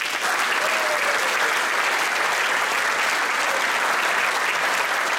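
Audience and band members applauding, starting abruptly and holding steady.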